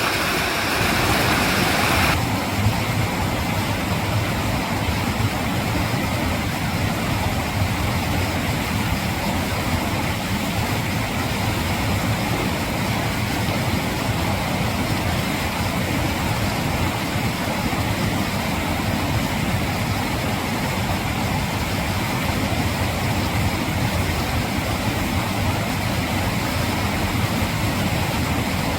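Mountain valley stream rushing over rocks, a steady full water noise. About two seconds in, the sound changes abruptly to a deeper, lower rush.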